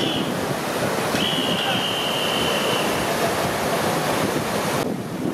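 River water rushing steadily over a low weir. A thin, high, steady tone sounds for about two seconds early in the rush, and near the end the hiss turns suddenly duller.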